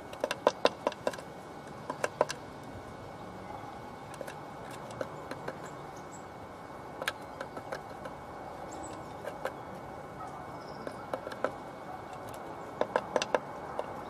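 Blue tit pecking at the entrance hole of a wooden nest box: sharp wooden taps in quick runs of several, about half a second in, about two seconds in and again near the end, with scattered single taps between.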